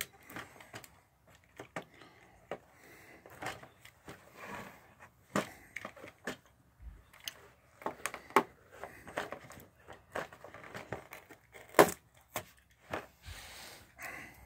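Small plastic toys and their packaging being handled by hand: scattered clicks and taps with crinkling rustles between, the loudest a sharp click about twelve seconds in.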